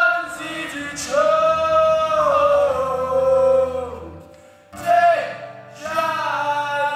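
A man singing a French-language country song in long held notes over acoustic guitar, with a brief pause between phrases about four seconds in.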